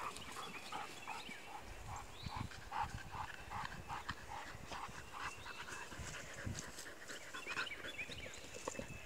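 Faint, quick rhythmic sounds from a dog, about three a second, that stop after five or six seconds, with a few bird chirps.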